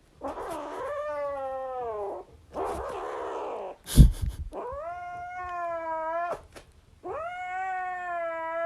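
A cat yowling: three long, drawn-out meows, each sliding down in pitch and then holding. Between the first two there is a stretch of hissy noise, and a sharp knock comes about four seconds in.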